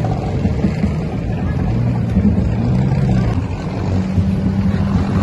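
A motorboat engine running steadily at speed, with water rushing along the hull.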